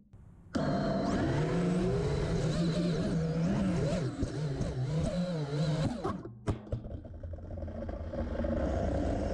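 Onboard sound of a 5-inch FPV quadcopter's brushless motors and propellers, a whirring whine whose pitch rises and falls with the throttle. It drops out for the first half second and dips again briefly about six and a half seconds in.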